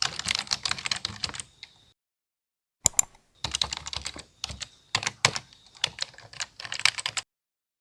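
Rapid clicking of keys being typed on a keyboard, in two runs with a pause and a single click between them, ending abruptly near the end.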